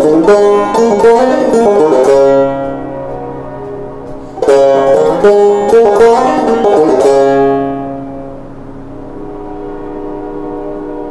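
Clawhammer banjo, frailed: a run of picked notes stops about two seconds in and rings on, a second phrase starts about four seconds in, and a last chord is then left to ring and slowly fade.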